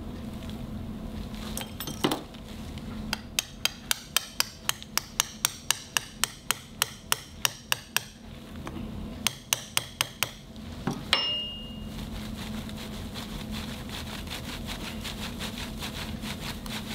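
A surgical mallet strikes a metal implant inserter in a steady run of sharp taps, about three a second, to drive the ligament fixation into the bone tunnel. A few more taps follow after a short pause, then a faint fast ticking.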